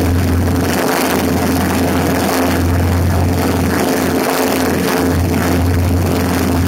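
Cessna 150's Continental O-200 engine and two-blade propeller droning steadily in cruise flight, with a loud rush of wind over the microphone of a camera mounted outside on the wing strut.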